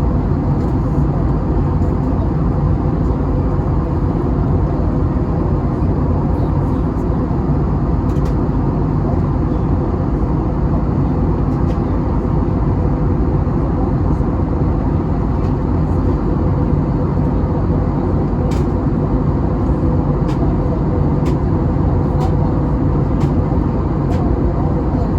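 Steady engine and air noise inside the cabin of an Airbus A321neo, with a faint held hum and a few faint clicks in the second half.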